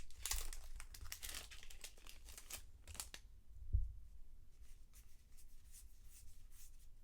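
Trading-card pack wrappers crinkling and tearing as packs are opened and cards handled, busiest in the first three seconds, with a soft thump just under four seconds in.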